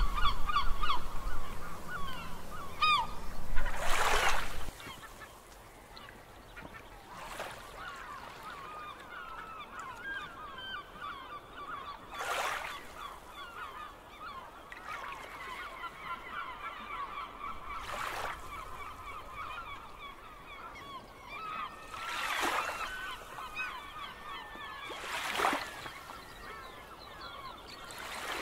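A flock of birds calling continuously in quick, repeated pitched cries, with sea waves washing in about six times at uneven intervals. A low rumble in the first few seconds cuts off suddenly about five seconds in.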